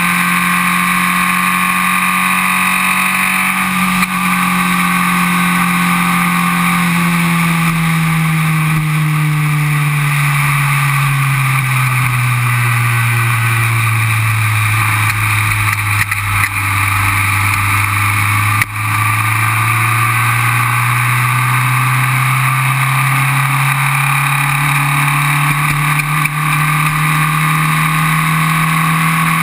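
Formula Vee race car's air-cooled Volkswagen 1200 cc flat-four engine running hard on track. Its pitch falls slowly over about ten seconds as the car slows through a long corner, then climbs steadily as it accelerates out onto the straight. There is a brief jolt about two-thirds of the way through.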